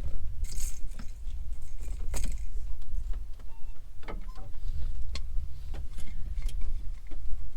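Scattered clicks and light metallic clinks of fishing tackle being handled right after a catfish is unhooked, over a steady low rumble.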